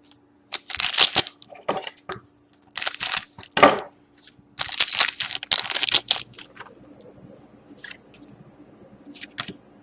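Plastic card packaging crinkling and tearing as it is handled, in several loud bursts over the first six seconds, followed by lighter scattered clicks and rustles.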